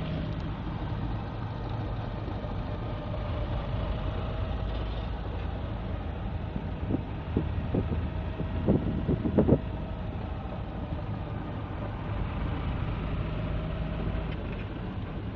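Interior noise of a moving vehicle: a steady engine and road rumble with a faint hum. A handful of short knocks or rattles come about halfway through.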